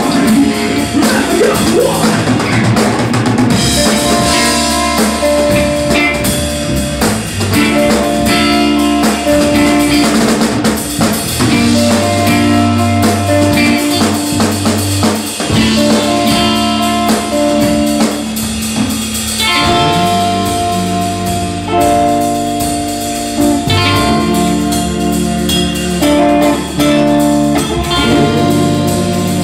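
Live rock band playing loudly: drum kit with cymbals, electric guitar and bass guitar together.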